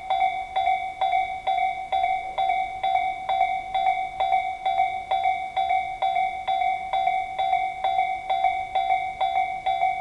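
Japanese railway level-crossing electronic warning bell, Tobu Railway's 'sound C' tone, ringing a steady ding-ding about twice a second with no break. It sounds while the barriers are down and the lamps flash, warning that a train is approaching.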